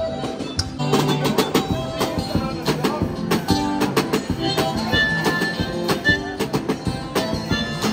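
Street busker's acoustic guitar, strummed and played loud, with sharp repeated strokes across the strings.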